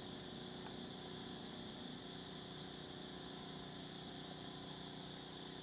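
Steady background hiss and hum with an even high-pitched drone running through it, no distinct calls or events.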